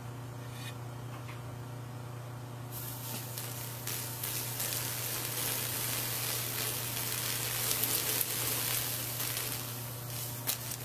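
Liquid nitrogen poured onto a Schott Robax glass-ceramic panel heated to about 650 °C, hissing and sizzling as it boils off the hot glass in a thermal-shock test. The hiss starts about three seconds in and swells, over a steady low hum.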